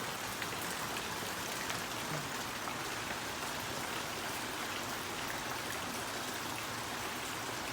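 Rain pouring down steadily, an even hiss that doesn't let up.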